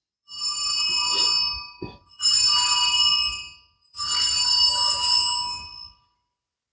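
Altar bells rung three times, each ring a shaken cluster of small bright bells lasting about a second and a half. They mark the elevation of the chalice at the consecration.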